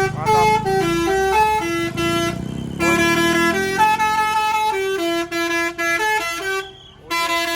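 Bus 'telolet basuri' horn playing a melody of stepped, held notes over the bus's running engine. The tune breaks off near the end, then a few more notes sound.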